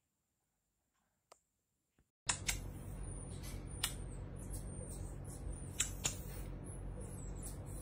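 Near silence with a faint click or two, then after about two seconds a steady low hum with scattered sharp clicks and short, very high-pitched chirps from baby marmosets held in a fleece blanket.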